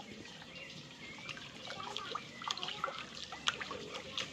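A hand squeezing and swirling a thick, watery ground horchata mixture in a plastic basin: irregular wet sloshing and squelching splashes.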